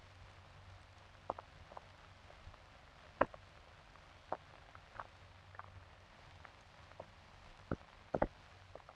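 Old optical film soundtrack noise: a faint steady hum and hiss with scattered, irregular clicks and pops, the sharpest about three seconds in and near the end.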